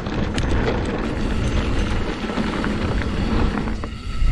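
Mountain bike rolling down a bumpy dirt trail: tyres running over rough ground and the bike rattling. It comes through as a steady low rumble with a few clicks near the start.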